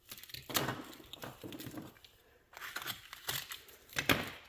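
Cardboard and packing tape being cut and pulled apart by hand: irregular crinkling, scraping and tearing, with the sharpest tear about four seconds in.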